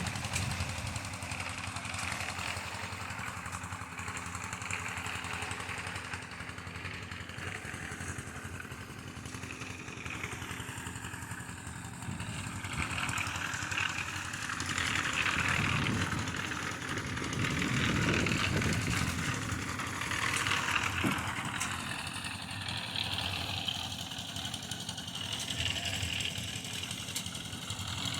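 An engine running steadily, with a louder stretch of noise in the middle.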